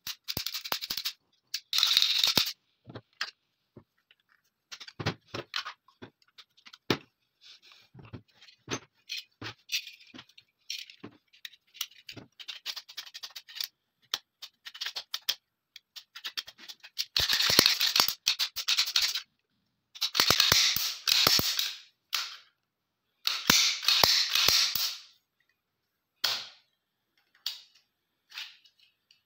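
Steel parts of a TT pistol being handled and fitted together: a string of sharp metallic clicks and knocks, broken by several longer scraping noises of metal sliding on metal, each lasting one to two seconds.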